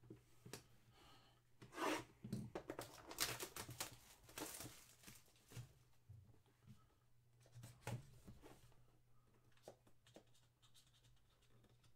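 Faint handling noise from a cardboard trading-card box being picked up and opened: irregular rustling, scraping and tearing at its seal, with scattered soft clicks and taps.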